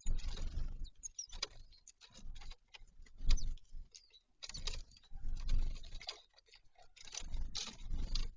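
Birds at a feeder close to the microphone: irregular tapping, pecking and scuffling, with low thumps from landings and movement.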